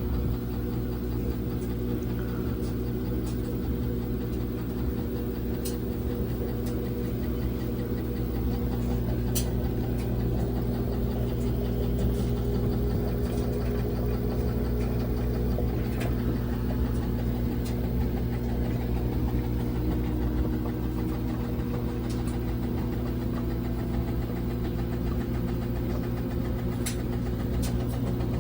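LG WT1101CW top-load washing machine in its spin cycle: a steady motor hum whose pitch climbs slowly as the drum speeds up, with scattered sharp knocks. The shaking and knocking are what the owner takes for a fault in the spin.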